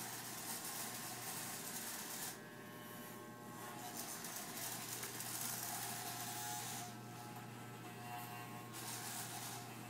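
Electric hair clippers running steadily and buzzing hair off a head, with a low, even motor buzz. Over it is a hissier cutting sound that drops out twice for a second or two.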